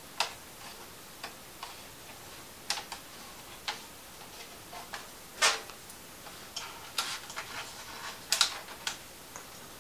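Scattered light clicks and taps, about a dozen at uneven intervals, from small parts being handled inside an opened laptop.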